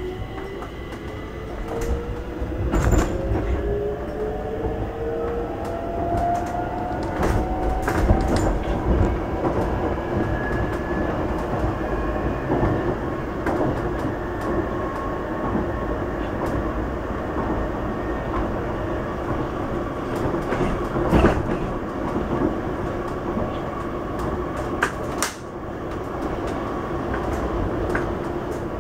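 Stockholm metro train heard from inside the car as it pulls away: the traction motors give a rising whine over the first several seconds, then the train runs at speed with a steady rumble and occasional sharp knocks from the wheels on the rails. Near the end an oncoming train passes on the other track.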